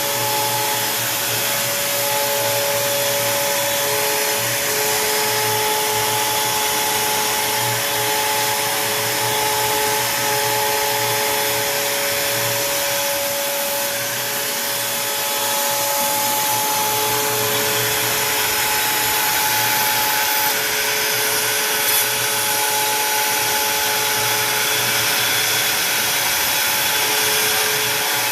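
Onefinity Woodworker CNC router cutting wood: the router spindle runs with a steady whirring hiss, and a few steady tones drop in and out as the machine's moves change.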